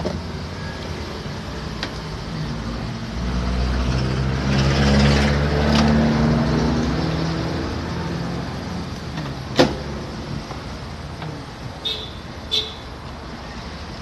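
Plastic clicks and a sharp snap as a microwave oven's keypad panel is pried loose from its clips, with two more short clicks near the end. Under it a passing vehicle's engine rumble swells and fades through the middle, over a steady background hum.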